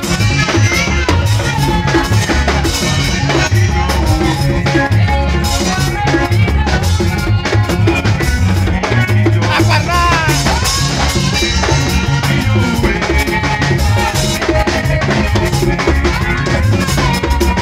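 Loud drum-driven music for the local Baya dance, with a steady beat throughout.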